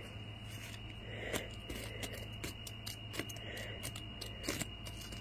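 Faint rustling of a nylon cat tunnel, with a few light ticks and crinkles, as a wand toy is dragged over it.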